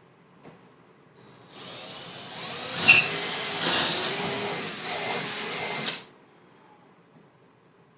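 Power drill boring holes in a wooden board. The motor whine starts about a second and a half in and climbs to full speed. It sags in pitch a couple of times as the bit loads up, then cuts off suddenly about six seconds in.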